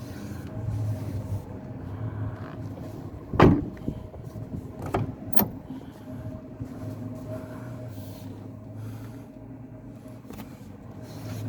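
Nissan Grand Livina's 1.5-litre HR15DE engine running steadily at idle. A loud thump comes about three and a half seconds in, and two sharper knocks follow around five seconds.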